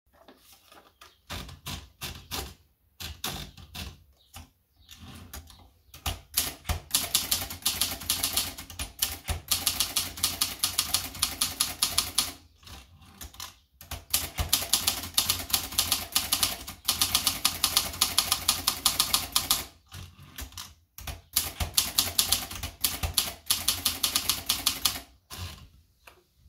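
Adler Tippa Deluxe portable manual typewriter being typed on: sharp key strikes, sparse and lighter for the first few seconds, then fast runs of keystrokes broken by two short pauses.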